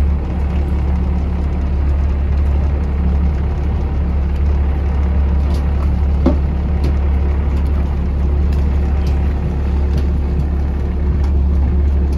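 Fishing boat's engine running with a steady low drone, with a few faint clicks now and then.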